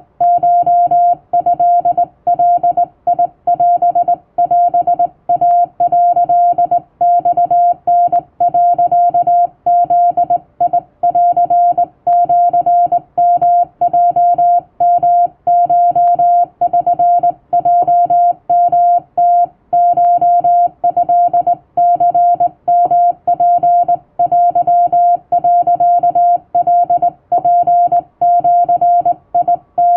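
Hand-keyed Japanese (wabun) Morse code: a single steady mid-pitched beep switched rapidly on and off in dots and dashes, with short irregular pauses between characters.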